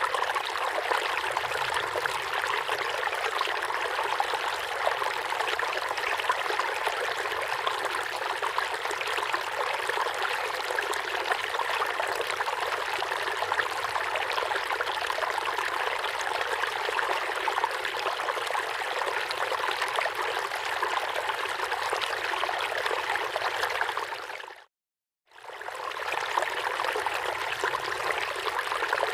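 River water flowing steadily, an even rushing and trickling. About three quarters of the way in it fades to silence for about a second, then comes back.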